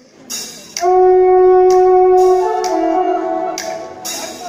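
Electronic keyboard playing a melody in a reedy wind-instrument voice: long held notes that step down in pitch about halfway, with short hissy bursts between them.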